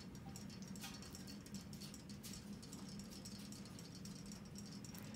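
Faint, irregular light ticks and taps as kittens paw at a clear plastic tray of water holding swimming fish, over a steady low hum.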